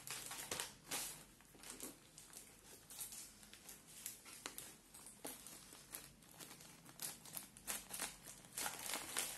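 Plastic courier mailer bag crinkling as it is handled and cut open with scissors, with irregular short crackles throughout.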